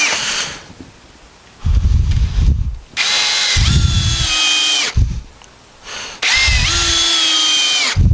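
Cordless drill driving screws into a wooden brace in three runs of a second or two each. At the start of each run the motor's whine rises as it spins up, holds steady over a low chatter while the screw goes into the wood, then stops.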